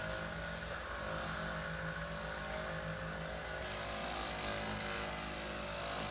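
A small electric motor running steadily, with an even hum.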